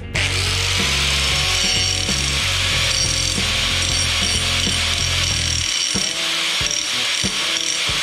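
Angle grinder disc cutting into a metal bar clamped in a vise: a steady, loud grinding hiss that starts at once and dies away near the end. Background music with a bass line plays underneath.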